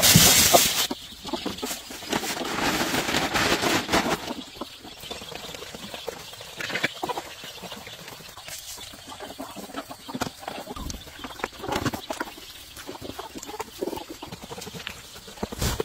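A flock of chickens clucking while pecking at grain, with a loud rustling noise in the first few seconds, then scattered pecks and short calls.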